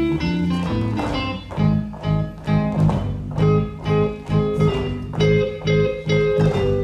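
Instrumental music for Breton dancing; from about a second and a half in it settles into a steady pulsing beat, nearly two beats a second.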